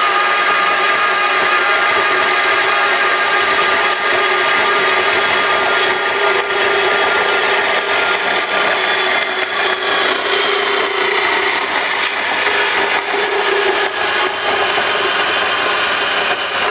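Small horizontal metal-cutting bandsaw running steadily, its blade cutting through an aluminum intercooler tube, a steady whine over the rasp of the cut.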